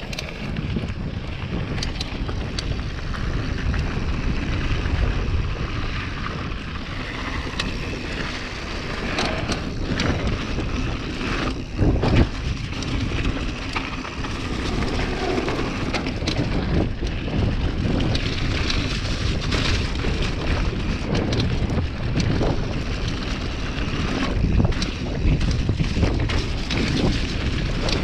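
Wind rushing over an action camera's microphone as a downhill mountain bike runs down a dirt trail, with tyre noise and many small rattles and knocks from the bike over bumps. A louder jolt about twelve seconds in.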